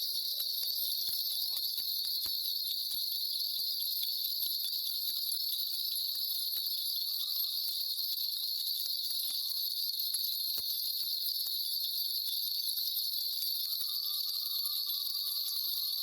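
A shaman's cluster of brass ritual bells shaken without pause, giving a steady high jingling shimmer with small clicks throughout. A faint thin tone sounds for a few seconds near the middle and again near the end.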